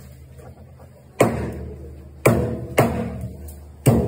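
Four sharp, uneven chopping strikes of a heavy knife cutting through yellowfin tuna, each ringing briefly, over background music.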